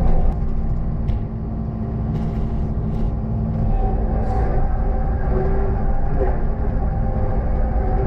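A loader's diesel engine running steadily at high throttle while its bucket pushes a load of hard, dry clay and chert rock; the engine note shifts about four seconds in.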